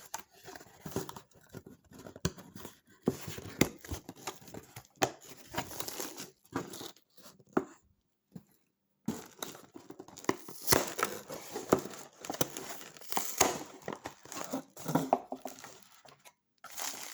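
Cardboard shipping box being pulled and torn open by hand, with crinkling paper packing, in irregular rips and scrapes. A short pause about halfway, then busier, louder tearing.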